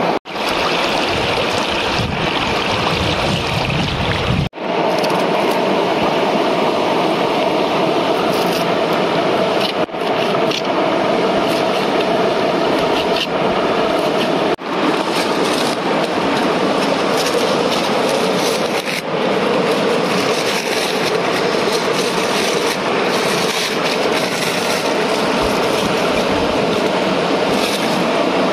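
Steady rushing of a waterfall, broken by a few brief dropouts.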